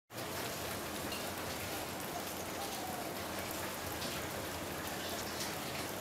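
Steady, even hiss of rain falling, with a few faint, short whistled notes over it.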